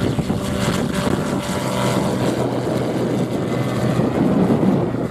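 Zenith STOL light aircraft's engine and propeller running at full power through its takeoff run and lift-off, a steady loud drone.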